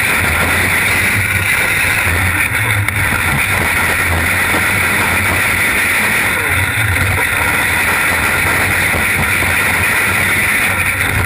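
Open-wheel dirt-track race car at speed, heard from a cockpit-mounted camera: its engine runs loud and unbroken, mixed with road and wind noise.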